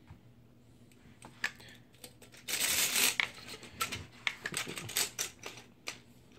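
Metallic clicks and rattles of an AR-15's buffer and coiled buffer spring being handled at the rear of the lower receiver. About two and a half seconds in comes a brief scrape, followed by a run of small clicks.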